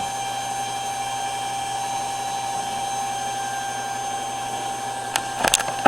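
Small water pump motor running steadily with a fixed whine, drawing water from a jug through a hose. A few sharp clicks and a knock come near the end.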